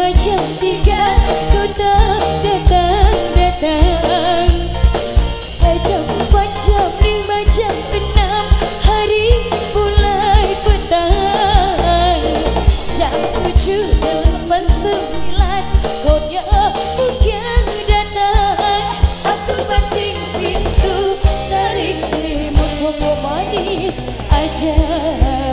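A live band playing through a PA system: a woman singing over a drum kit keeping a steady, regular beat, with electric guitars and bass.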